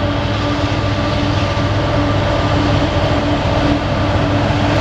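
Steady train rumble heard from aboard a slowly moving railcar, with a constant droning hum over it.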